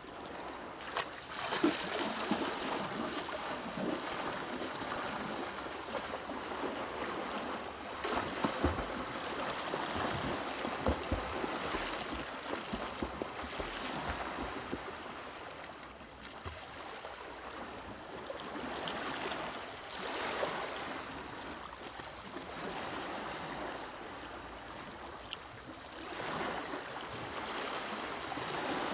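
Water splashing and washing, swelling and easing every few seconds, with a few low thuds near the middle.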